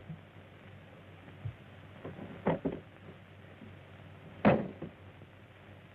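A few scattered knocks and clunks, the loudest about four and a half seconds in, over a steady hiss.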